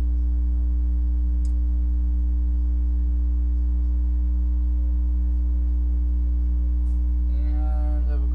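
Loud, steady low electrical hum, mains hum picked up by the recording, with a few fainter steady tones above it. There are a couple of faint clicks, and a voice starts near the end.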